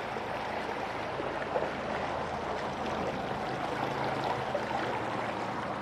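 Honda outboard motor on a small boat running at low speed as it passes, a faint low hum under a steady rush of water and open-air noise.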